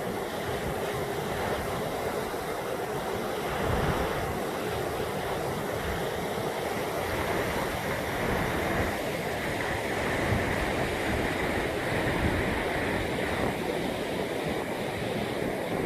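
Steady rush of the Brúará river falling over a waterfall, with wind buffeting the microphone in irregular low thumps.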